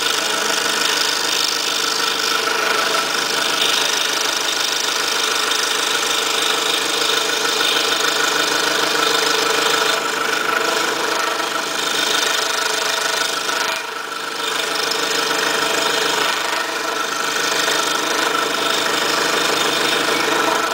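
Scroll saw running steadily, its fine 2/0 blade sawing through a stack of three layers of 1/8-inch plywood: a steady motor hum with fast, even blade strokes. The level dips briefly about two-thirds of the way through.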